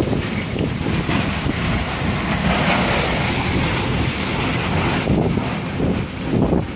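Strong typhoon wind blowing in gusts and buffeting the microphone with a heavy low rumble.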